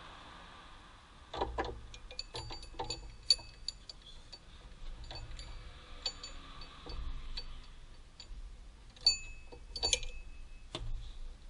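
Metal hand tools clinking and clicking against engine parts: irregular sharp ticks, some leaving a brief high metallic ring.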